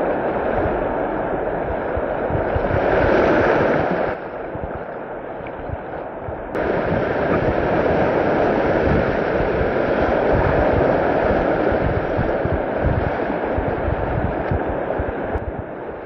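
Rushing whitewater: a steady noisy rush of fast river water that drops off abruptly about four seconds in and comes back just as suddenly about two seconds later.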